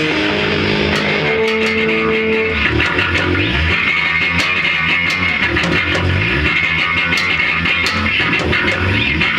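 A rock band playing loud, heavy rock with electric guitar and bass guitar over drums hitting steadily.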